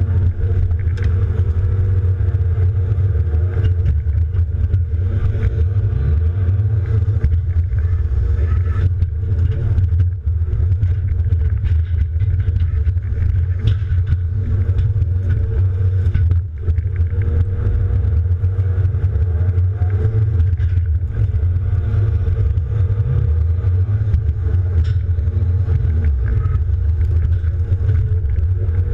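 John Deere 270D LC excavator's diesel engine running steadily, heard from inside the cab, with scattered light knocks and clicks.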